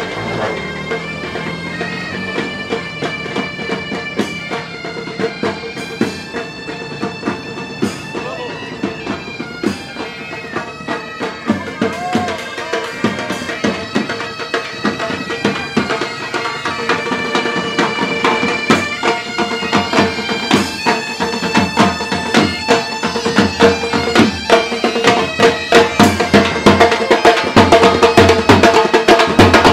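Pipe band playing: bagpipes sound a melody over their steady drone, with drums beating throughout. The music grows louder over the last few seconds.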